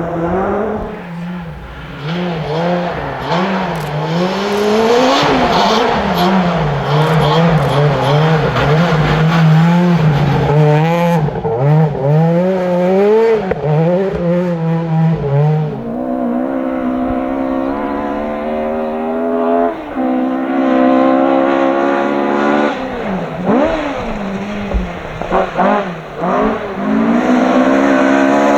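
Rally car engines at full throttle, their note repeatedly rising and falling as the cars rev, lift off and change gear. Partway through, a different stretch begins, with an engine climbing more steadily in pitch and dropping back at each gear change.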